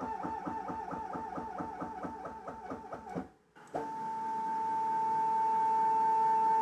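Grizzly G0704 CNC mill's Z-axis drive motor moving the head up, its tone wavering and clunking in pulses about four or five times a second: with too little supply voltage, the closed-loop drive is oscillating. About three seconds in it stops, and the motor starts again with a smooth, steady whine that slowly grows louder as the axis runs down without trouble.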